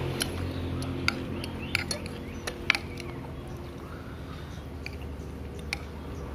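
Metal spoon and fork clinking against a plate while eating: a string of short sharp clinks at irregular intervals, the loudest a little under three seconds in, over a low steady hum.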